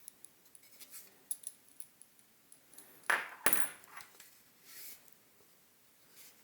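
Small metal key buttons of an electronic wind instrument being handled and set down, with light scattered clicks and clinks and a louder clatter about three seconds in.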